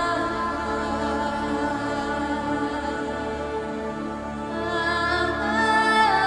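Slow ambient background music of long held tones, with a higher melodic line coming in about two-thirds of the way through and sliding up in pitch near the end.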